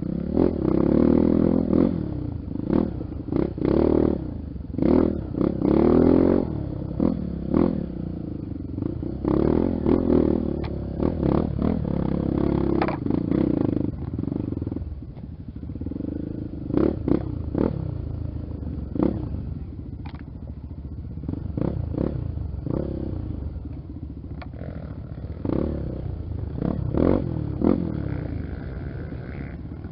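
Honda XR 250 Tornado's single-cylinder four-stroke engine on a dirt trail, its revs rising and falling in repeated surges of throttle, with scattered clattering knocks. The surges are strongest in the first half.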